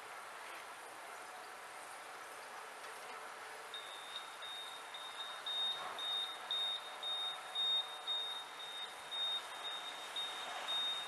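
Lock warning beeper sounding a high electronic beep about twice a second, starting about four seconds in, as a signal that the lock gate is moving.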